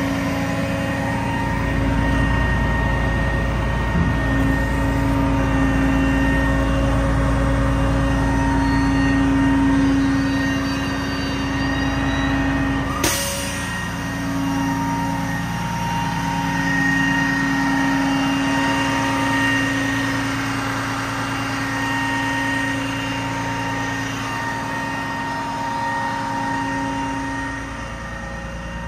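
The Freightliner M2 112's Caterpillar diesel engine running steadily, with a steady whine on top of it. A single sharp clack about 13 seconds in.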